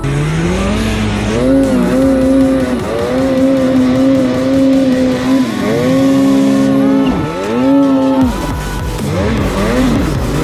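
Snowmobile engine revving hard and holding high rpm as the sled powers through powder. The pitch climbs near the start, holds steady, and drops and climbs again a few times as the throttle is eased and reapplied, wavering up and down near the end.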